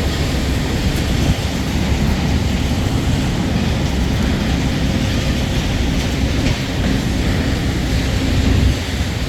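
Loud, steady din of sawmill machinery running: a deep rumble with a hiss over it, easing slightly near the end.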